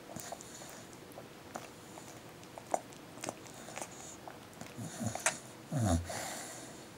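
Sleeping dog making small wet mouth clicks and smacks, then a few low, muffled vocal sounds in its sleep from about five to six seconds in.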